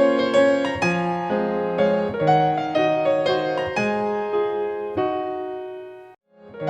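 Piano music playing a melody of single struck notes over chords. It fades out to silence about six seconds in and starts again a moment later.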